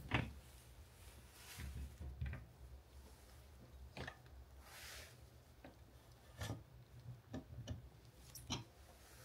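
Faint clicks, knocks and rubbing of stainless-steel parts as the grinder head and feed tube of an electric meat mincer are unlocked and pulled off its motor housing. The sharpest knock comes right at the start, with scattered smaller clicks after.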